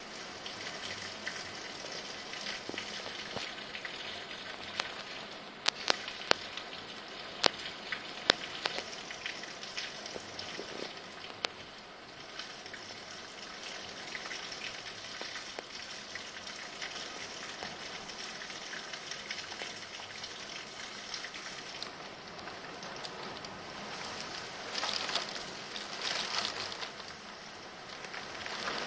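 Heavy wind-blown rain pouring steadily as a dense hiss. A few sharp ticks of drops striking something close come in the first third, and the rain surges louder twice near the end.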